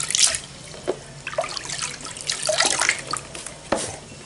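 Water splashing and sloshing in a plastic basin as a TV circuit board is dunked and swished by hand to wash it. The splashes come irregularly, loudest at the start.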